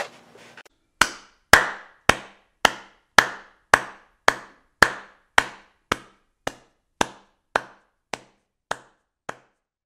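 A sharp knock repeated about twice a second, some sixteen times, starting about a second in and slowly dying away, laid under a production logo card as a sound effect.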